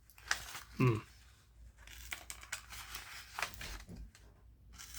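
Faint handling of a Victorinox Huntsman Swiss Army knife with its small blade out: scattered light clicks and rubbing of the knife in the hand.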